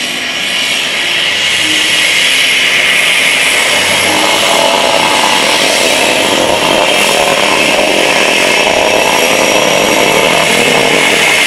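A Cessna 208 Caravan's single turboprop engine runs as the plane taxis close by, with propeller and turbine noise as a steady, high-pitched rush. It grows louder over the first couple of seconds as the plane approaches, then holds steady.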